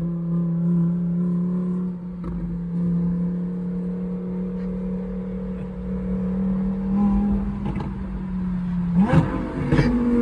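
Lamborghini Huracán EVO's V10 engine running at a steady, fairly high engine speed, then two sharp cracks near the end as the revs jump up and keep rising.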